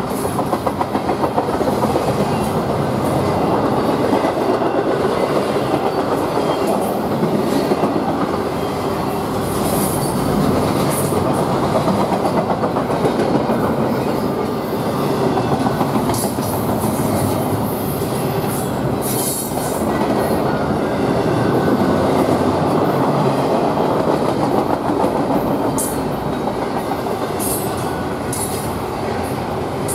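Double-stack container well cars of a freight train rolling past: a steady loud rumble and clatter of steel wheels on the rail, with brief high squeals now and then.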